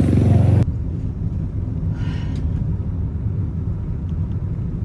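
Steady low rumble of a car cabin on the move. A louder, fuller noise cuts off abruptly less than a second in, leaving only the rumble.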